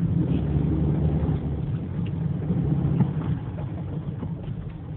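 Car engine and road noise heard from inside the cabin, a steady low rumble that grows quieter over the last couple of seconds as the car slows.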